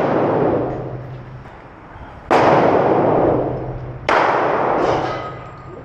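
Two .45-calibre pistol shots about two seconds apart at a shooting range. Each is a sharp crack followed by a long echoing decay, and the echo of a shot fired just before is still dying away at the start.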